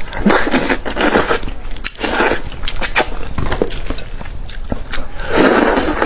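Close-miked eating of a large cooked fish head: wet chewing and sucking noises in several bursts, with sharp clicks and smacks in between.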